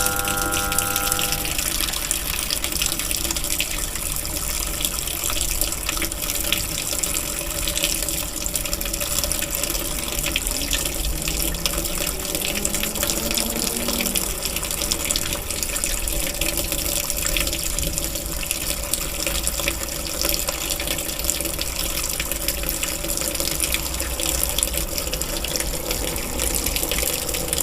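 Toshiba washing machine filling with water on its wash cycle: a steady rush of water pouring into the tub.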